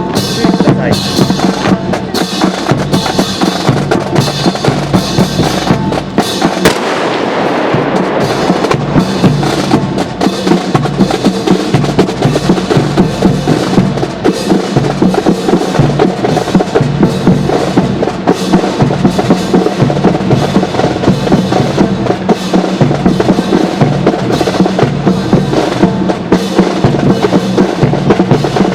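Marching drums, snare and bass drum, playing a steady, unbroken drum cadence.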